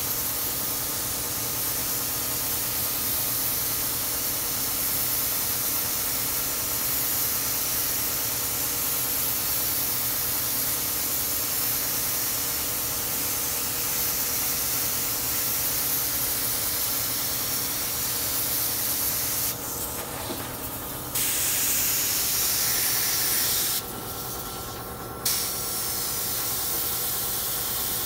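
Compressed-air spray gun hissing steadily as it sprays thinned white lacquer in a whitewash shading coat, the air choked well down. The hiss drops away twice for a second or so, about two-thirds of the way through and again near the end, leaving a steady faint hum beneath.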